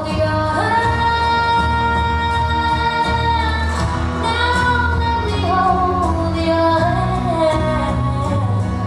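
Recorded 1960s pop song playing, with a woman's voice holding long sung notes over a steady bass.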